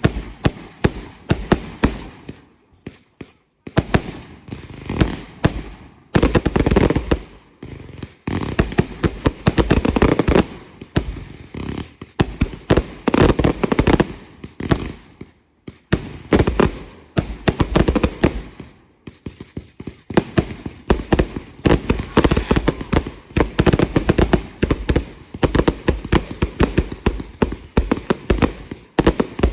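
Consumer fireworks going off in rapid barrages: dense runs of bangs and crackling, broken by a few brief lulls.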